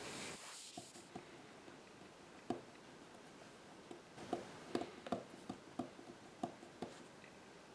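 Fingernails picking at and peeling a paper price sticker soaked with degreaser off a laminate tabletop: a dozen or so faint, small ticks and clicks, most of them in the second half.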